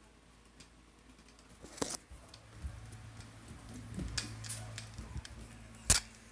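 Scattered clicks and knocks over a low rumble, with one sharp knock near the end: handling noise from a phone being carried and moved around.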